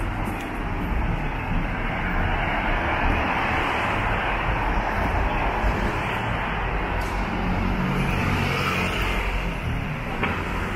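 Road traffic on a wet street: tyres hissing on wet tarmac over a low engine rumble, swelling and fading as vehicles go by.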